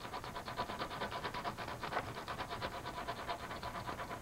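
Coarse sandpaper wrapped around a wooden paddle, rubbed by hand over surface rust on a car's steel body panel in quick back-and-forth strokes, several a second. It is scrubbing the rust off as the first step of a rust repair.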